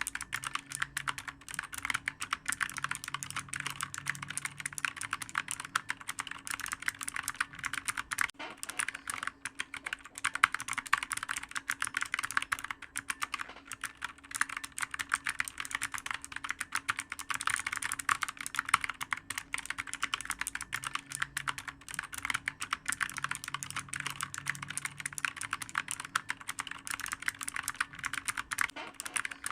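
Continuous fast typing on a clicky computer keyboard: a dense, uneven patter of key clicks with no pauses, over a faint steady hum.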